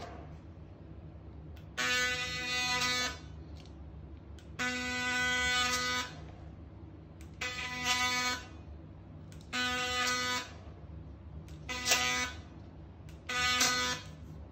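Ultrasonic bread-scoring blade (Sonic Lame) buzzing in six short bursts of about a second each, the same steady pitched buzz each time it runs, over a low steady hum.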